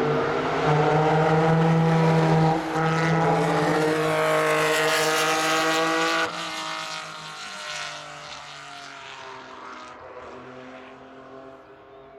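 Ferrari sports car engines accelerating past, the engine note rising with a gear change a few seconds in. The sound stays loud for about six seconds, drops suddenly, and then fades slowly as the cars pull away.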